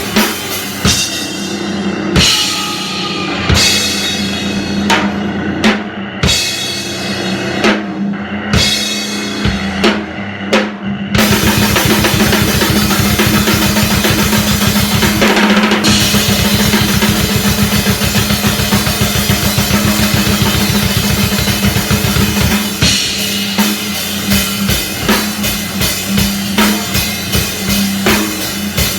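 Live powerviolence band playing loud and raw, drums to the fore. It starts with stop-start hits with short gaps between them. About eleven seconds in it breaks into a very fast blast-beat section for about twelve seconds, then drops back to spaced, pounding hits.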